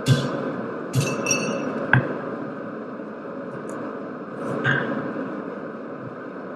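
Hammer blows on hot steel over an anvil, each with a short metallic ring: four in the first two seconds and one more near the five-second mark, over a steady rushing noise.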